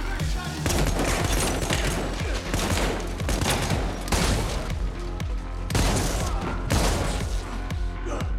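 Film action soundtrack: repeated gunshots, including blasts from a shotgun firing Dragon's Breath incendiary rounds, come in clusters over an electronic score.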